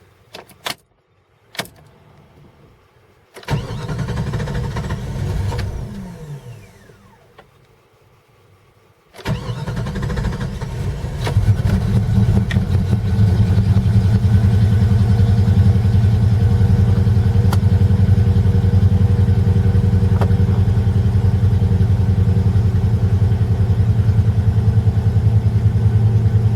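1995 Jeep Grand Cherokee 5.2-litre V8 being started cold: a few clicks, then a first burst of sound that winds down, and about nine seconds in the engine catches and runs, settling into a steady idle. It is a cold-morning hard start: the engine starts and runs well only once warm.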